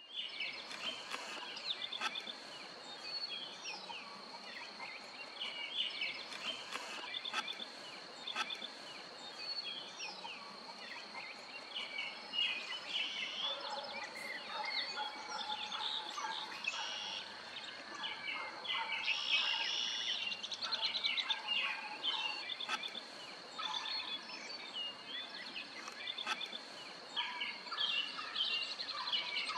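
Several birds singing and chirping over a steady high-pitched whine.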